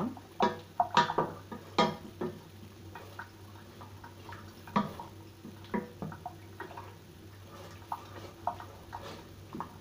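Irregular small clicks and pops from a pot of honey, ginger and lemon syrup simmering and being stirred, busiest in the first two seconds, then sparser.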